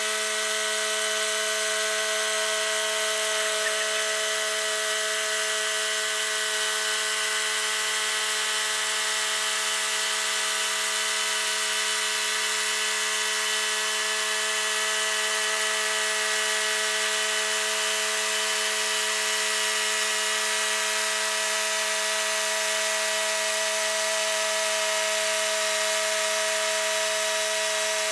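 Mighty Mite band sawmill running under load, its engine holding a steady pitch as the band blade cuts lengthwise through a Sitka spruce log.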